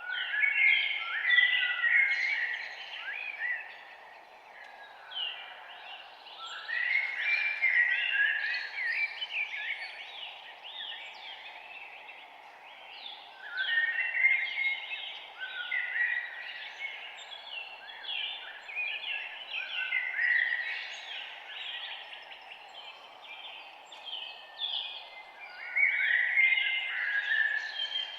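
Several songbirds chirping and trilling together, many short overlapping calls that swell in bouts every few seconds, over a steady low background hiss.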